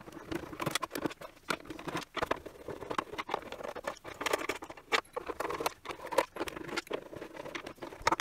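Screws being backed out of the plastic rear case of a portable ultrasound bladder scanner, heard as a dense, irregular run of small clicks, taps and scrapes as the driver works, the screws come free and the case is handled.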